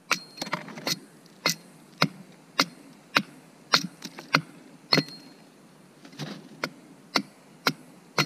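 Long-handled axe chopping into a small wooden blank, roughing out a carved cup. The chops come in a steady series, sharp and evenly spaced, nearly two a second.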